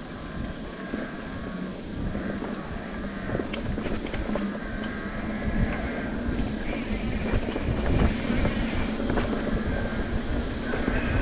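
Mountain bike ridden over a rocky trail: wind rushing on the microphone, with tyre noise and rattling and a string of sharp knocks as the bike strikes rocks, growing louder near the end.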